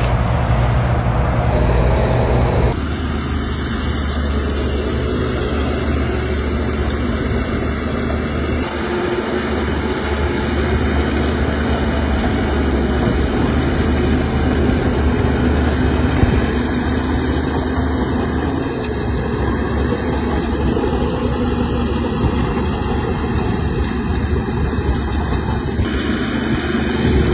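Heavy diesel engines of earthmoving machines (excavators and a crawler bulldozer) running steadily with a deep hum. The sound changes abruptly about three seconds in and shifts again a few times later.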